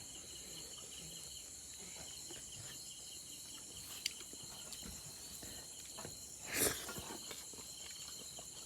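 Steady chirping chorus of insects such as crickets, with a pulsing trill and several high tones held throughout. A short knock or rustle stands out about six and a half seconds in.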